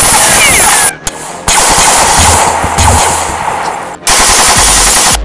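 Rapid machine-gun gunfire sound effects, one dense burst after another. The firing breaks off abruptly about a second in and again near the end, then starts up again.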